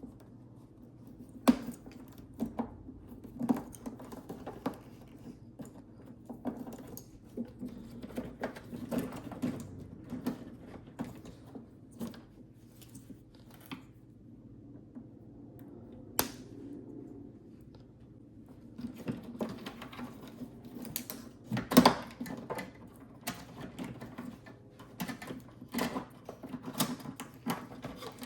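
Wire cutters snipping through headlight wiring-harness wires, with irregular clicks and rustling as the wires are handled and pulled out. A few sharp snaps stand out; the loudest comes about 22 seconds in.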